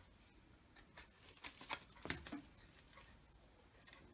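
A few faint snips and rustles: small scissors trimming thread ends and a fabric paper page being handled.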